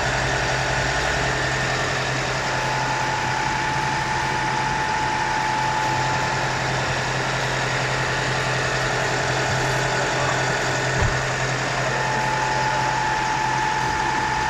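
2010 Ford Fusion Hybrid's 2.5-litre four-cylinder petrol engine idling steadily, warm and running on fresh oil dosed with EZI Extra Powerlube anti-friction additive. A faint thin whine rides over the engine hum, dropping out for a few seconds midway, and there is one small click about eleven seconds in.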